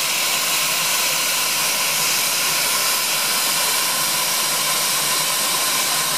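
Steam locomotive hissing steadily: a loud, even hiss of escaping steam with a faint steady tone in it.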